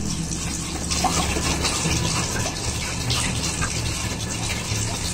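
Steady rushing noise with a low hum underneath.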